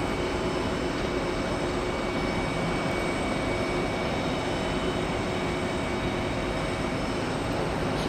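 Boeing 747 freighter's jet engines running at taxi power: steady engine noise with several constant whining tones.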